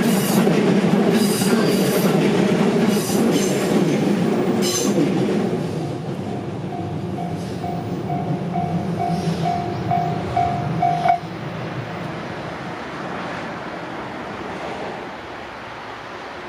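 An electric train rumbles over a Japanese level crossing, its wheels clicking, and fades away while the crossing's electronic warning bell keeps ringing at about two strikes a second. The bell cuts off suddenly about eleven seconds in as the crossing clears.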